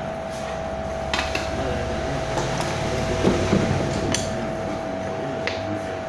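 A few light clicks and taps of small metal tools and a flux tin on a workbench, over a steady background hum.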